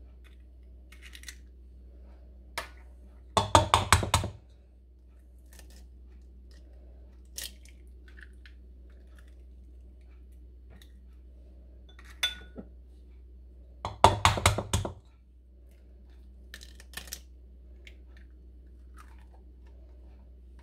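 Eggs cracked against the rim of a stainless steel mixing bowl: two short runs of quick sharp taps, a few seconds in and again about two-thirds of the way through, with a few faint clicks of shell in between.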